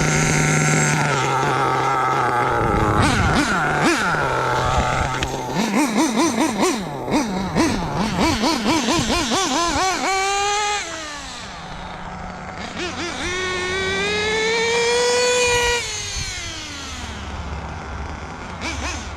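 Nitro RC car's Dynamite .28 big-block glow engine being driven: a high-pitched two-stroke buzz blipped rapidly on and off the throttle, then rising and falling in pitch as the car speeds up and passes by, twice.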